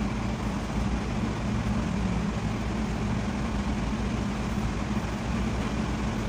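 Steady low mechanical hum of a motor or engine running in the background, even throughout, with no knocks or tool strikes.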